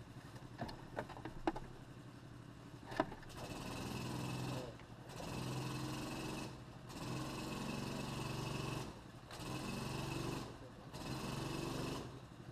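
A few sharp knocks and clicks, then a small engine running, its sound coming and going in stretches of about one and a half seconds, roughly every two seconds.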